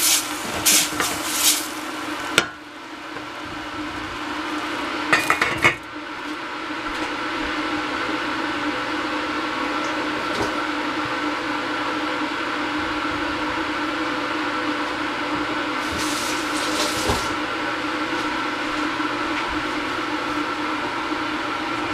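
Wooden spatula scraping and stirring vegetables frying in a stainless steel saucepan, then the metal lid clinking onto the pan about five seconds in. After that, a steady hum and hiss runs on while the covered pan cooks on the gas burner.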